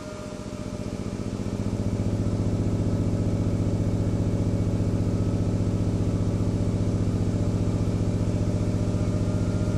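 Prototype XBL² 24-inch subwoofer driver playing a low tone free-air at long excursion: a steady low hum with a fast flutter, building over the first couple of seconds and then holding level. The amplifier's cooling fans run underneath.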